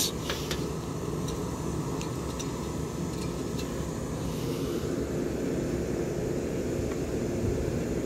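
Steady drone of rooftop air-conditioning equipment running nearby, with a few faint clicks near the start.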